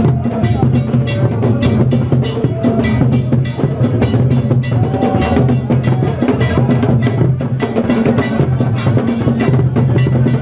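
Traditional drum ensemble playing a fast, dense beat, with a sharp clicking part over deep drums.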